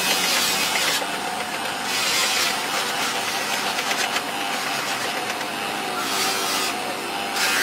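Bench polishing motor running with a foam buffing pad while a plastic headlight lens is pressed against the spinning pad. The rubbing hiss swells and drops back as the lens is worked across the pad and eased off it.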